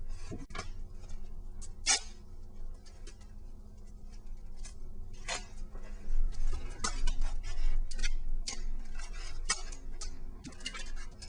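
Hands wrapping foam and tape around a foam sword's pommel: irregular crackling clicks, coming thicker and louder from about halfway on.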